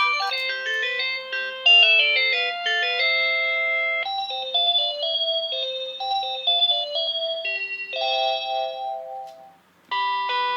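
Cordless phone playing short electronic ringtone melodies one after another as ringtones are previewed during setup. Each tune breaks off and a different one starts, with a brief near-silent gap about nine and a half seconds in.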